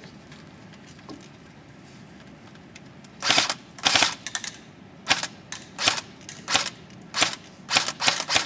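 Echo 1 G3 SG1 airsoft electric rifle firing single shots at a target, starting about three seconds in, roughly one to two sharp cracks a second, about a dozen in all.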